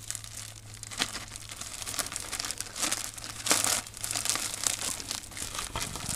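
Clear plastic zip-top bag crinkling and rustling in irregular bursts as it is squeezed and kneaded by hand to mix casting powder with water inside, with a louder crinkle about halfway through.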